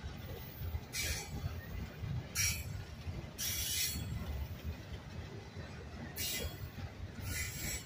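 Autorack freight cars of a slow-moving train rolling past: a steady low rumble with about five brief high-pitched wheel squeals.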